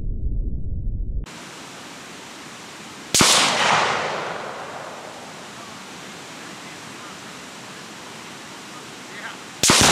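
Deep rumble of an explosion that cuts off about a second in. About three seconds in comes a single sharp bang that echoes away over a second or two. Near the end a large explosion goes off.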